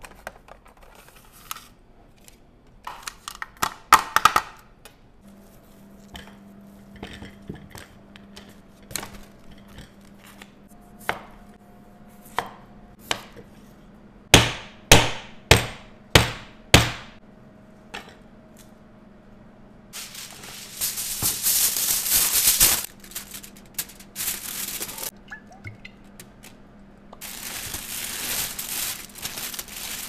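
Potatoes being cut on a wooden chopping board: light clicks and scrapes, then five sharp knife chops about half a second apart. Near the end come long bursts of plastic crinkling as a gloved hand works potato wedges on a foil-lined tray.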